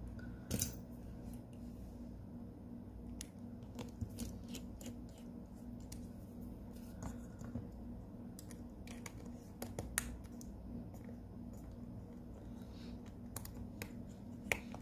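Scattered small clicks and taps from hand tools and phone parts being handled during a phone battery repair, over a steady low hum.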